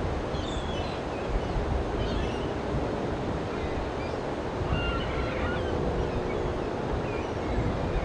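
A steady, deep rushing noise, heaviest in the low end, with several short bird chirps scattered over it.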